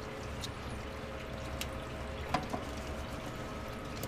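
Coolant trickling steadily from a radiator drain petcock into a pan, with a few light metallic clicks from a wrench on a bolt, the loudest just past the middle.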